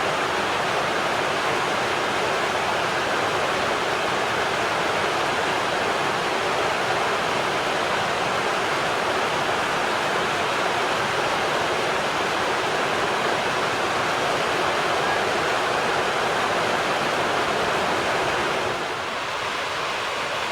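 Rushing water running steadily, a stream or weir, that becomes a little quieter near the end.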